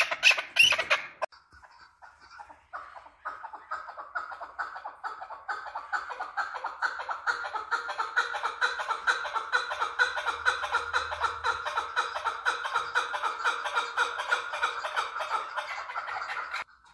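Chukar partridge calling. There are a few loud harsh calls in the first second, then after a short pause a long run of rapid, repeated chuck notes that builds in loudness and stops abruptly near the end.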